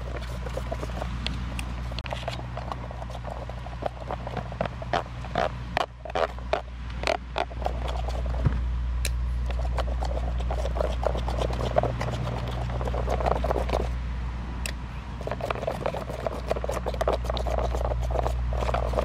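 Wooden stick stirring a thick slime mixture in an aluminium foil pie pan: irregular clicks and scrapes against the foil, over a steady low rumble.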